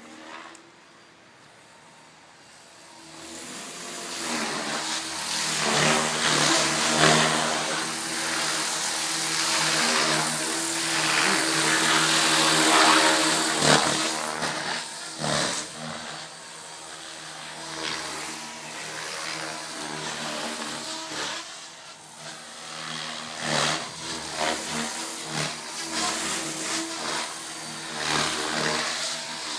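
KDS Chase 360, a 450-size electric RC helicopter, flying 3D freestyle: the motor and rotor blades whine, the pitch sliding up and down with each manoeuvre. Faint at first, it grows loud about three seconds in as the helicopter comes closer.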